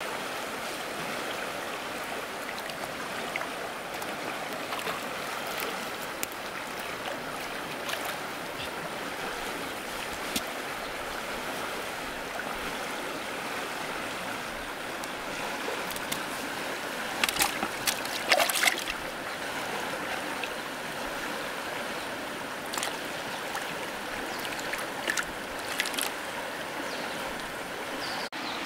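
River water flowing with a steady rushing hiss. A few short sharp clicks and rustles come through around the middle and again near the end.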